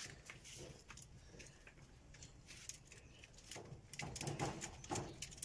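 Faint, scattered clicks and light rattles of rabbits shifting and scrabbling on a wire cage's plastic slatted floor as a buck mounts a doe; the tapping gets busier and louder about three and a half seconds in.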